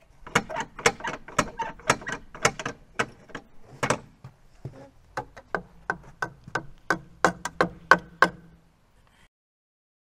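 A toddler bangs a plastic toy shovel against a wooden play structure: a quick run of sharp taps and knocks, about three a second, the later ones with a slight ring, stopping about nine seconds in.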